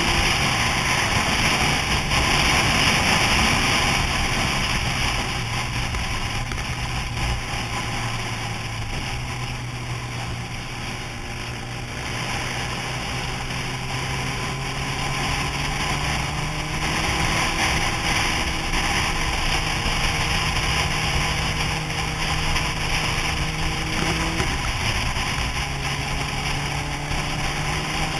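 Sport motorcycle engine running at road speed, its note drifting slowly up and down with the throttle and changing step near the end, under a steady rush of wind on a helmet-mounted microphone.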